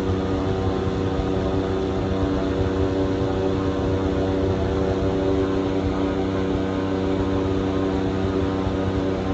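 Airboat engine and propeller running steadily under way, holding one even pitch.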